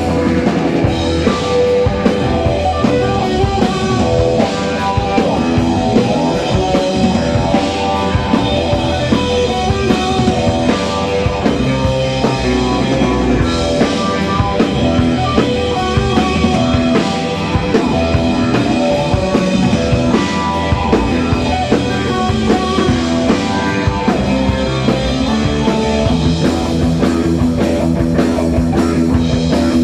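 Live psychedelic rock band playing loud and without a break: a Telecaster-style electric guitar, a bass guitar and a drum kit.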